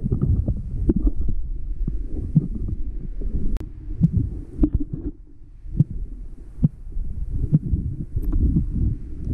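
Muffled underwater sound from a submerged camera: low rumbling water movement with irregular knocks and clicks, briefly quieter just past the middle.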